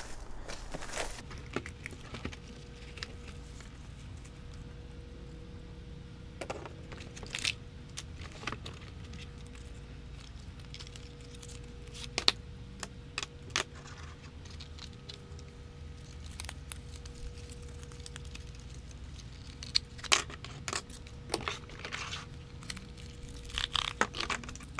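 Unboxing and handling noises: cardboard and plastic packaging rustling, with scattered clicks and knocks as plastic parts and antennas are taken out and set down on a table.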